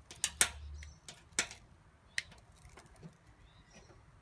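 A few sharp clicks and snaps from hand tools and a coaxial cable being handled as the next cable end is prepared: a quick cluster right at the start, then single clicks about a second and a half and two seconds in, with fainter ticks after.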